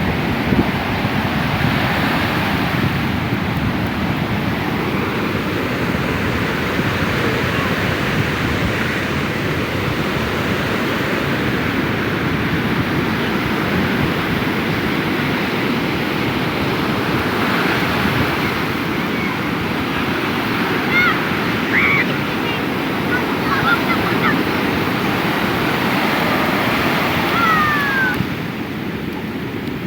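Surf washing steadily onto the beach, with wind buffeting the microphone. A few faint high shouts come through late on.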